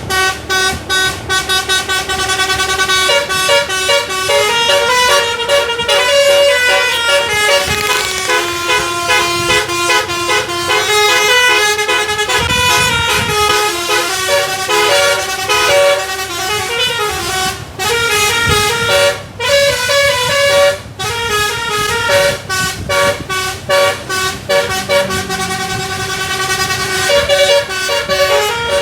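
A bus's telolet basuri musical air horn, a multi-trumpet horn, plays a fast melody of quickly stepping notes. It breaks off briefly a few times a little past the middle.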